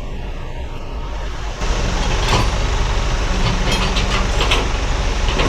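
Engine of a working machine running steadily, growing louder about a second and a half in, with several sharp metal clanks as a drag is maneuvered into the trailer.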